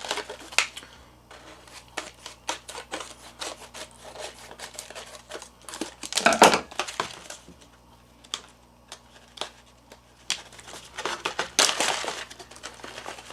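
Heat-sealed plastic food pouch being opened and handled: irregular crinkling and rustling, with louder crackling bursts about halfway through and again near the end as the packed bags inside are pulled out.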